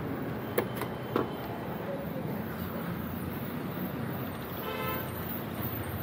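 Steady road traffic noise with a short vehicle horn toot about five seconds in, and two sharp clicks about half a second and a second in.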